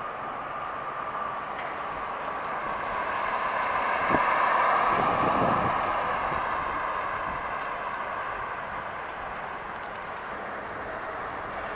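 2018 Chevrolet Corvette convertible's 6.2-litre V8 running as the car drives past, along with tyre noise. The sound grows to its loudest about four to six seconds in, then fades as the car moves away.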